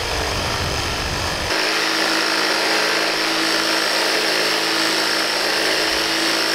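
A 3D-printed two-impeller water jet running under electric motor power: a steady mechanical whine over a rushing noise. About a second and a half in, the low rumble drops away and a steadier, higher tone remains.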